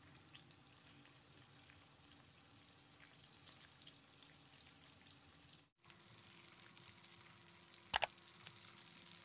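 Parboiled chicken pieces frying in melted margarine in a nonstick wok, a faint sizzle with small crackles. About two seconds from the end comes a single short knock.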